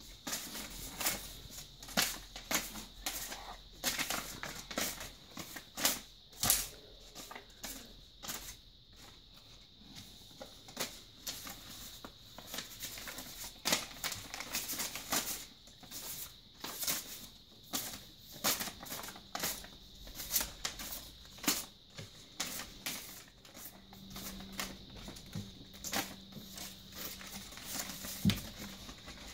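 Paper and a plastic bag rustling and crinkling in short, irregular bursts as a child handles paper cutout figures.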